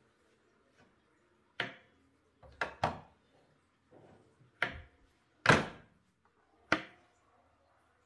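Small plywood door pushed shut against its wooden frame again and again, knocking and clacking as the spring-loaded metal latch catches. Six sharp knocks, two of them close together, the loudest a little past halfway.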